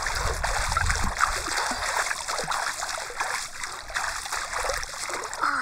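A swimmer doing front crawl, arms splashing and churning the water with each stroke: a steady, continuous splashing.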